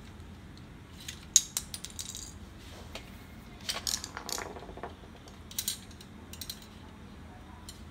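Fuser assembly of an HP LaserJet P3015, metal frame and plastic parts, being handled: a sharp click about a second in, then scattered clicks and clattering knocks, with a longer clatter near the middle.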